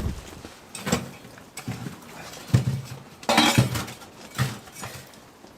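An irregular series of knocks and thuds, about one a second, with a longer crunching rasp a little past the middle.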